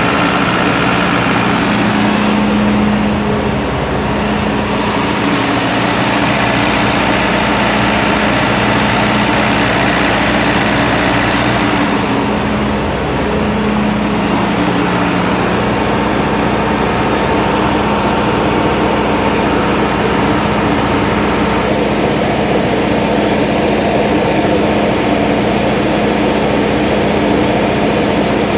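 Kohler 60 kW diesel generator set with its John Deere diesel engine running at a steady governed speed, a constant hum.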